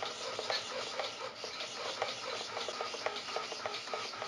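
Two small RC hobby servos moving in short, irregular spurts of buzzing and clicking as the control surfaces are worked, over a steady hiss. They run on a falling supply voltage near 3 volts.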